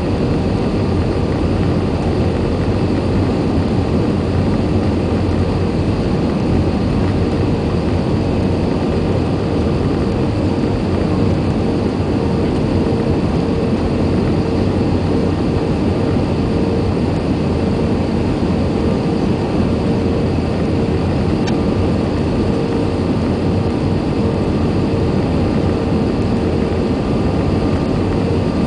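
Steady cabin noise of an Airbus A320 airliner on final approach, heard from a window seat over the wing: the engines and rushing air make a continuous loud roar. A steady mid-pitched hum joins in about twelve seconds in.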